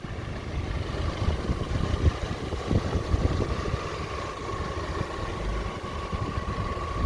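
A 2006 Audi A4's engine idling steadily, with a faint steady high tone over the low running sound.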